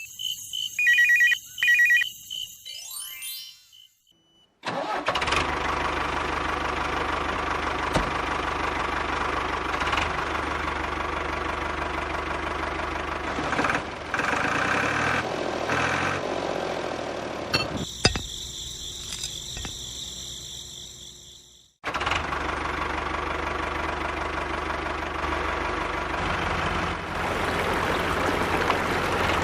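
Tractor engine running steadily in two long stretches, broken by short bright chime-like sound effects at the start and again about two-thirds of the way through.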